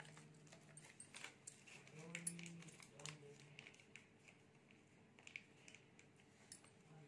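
Mostly near silence, with a few faint clicks and taps of a spoon against a steel mixing bowl as ginger-garlic paste is scraped onto the chicken. A brief faint hum comes about two seconds in.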